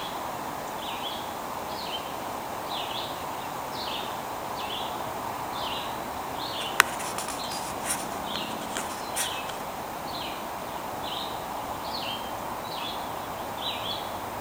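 Steady rush of a running stream with a bird repeating a short, high call that falls in pitch, over and over at a fairly even pace. A sharp click about seven seconds in, followed by a few softer clicks.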